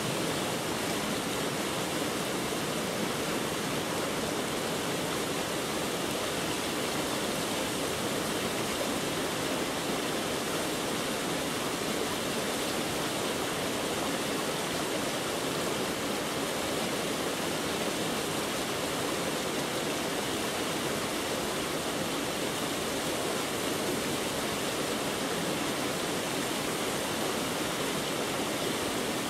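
Steady, even rushing noise that spreads across low and high pitches alike and does not change.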